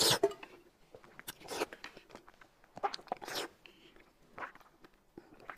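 Close-up eating sounds: a man slurping and chewing a mouthful of noodles, in short bursts, the loudest right at the start.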